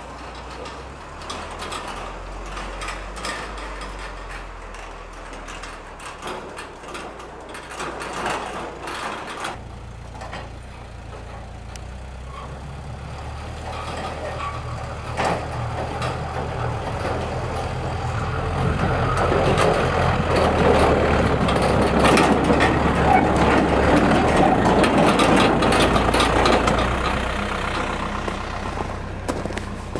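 Engine of an Isuzu NPR HD stake-bed truck running as the truck drives up through snow. It grows steadily louder as the truck comes close, is loudest through the second half, then eases a little near the end.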